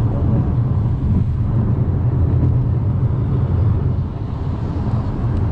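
Steady low road rumble heard inside a moving car's cabin: tyres on a wet highway with engine hum, dipping slightly about four seconds in.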